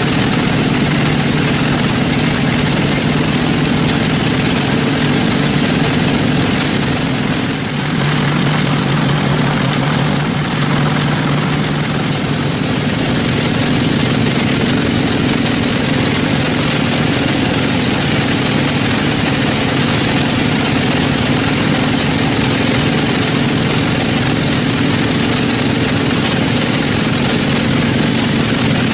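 Sawmill machinery running steadily: a constant engine-like drone with a low hum, dipping briefly about a quarter of the way in.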